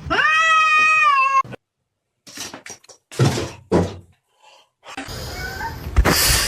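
A domestic cat gives one long, slightly falling meow lasting over a second. After a short gap come a few brief breathy noises, then a sharp knock near the end.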